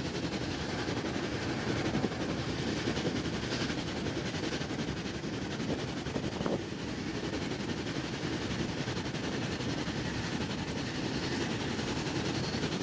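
Steady running noise of a German n-Wagen regional passenger coach under way, with the rumble of wheels on the rails. There is a single short click about six and a half seconds in.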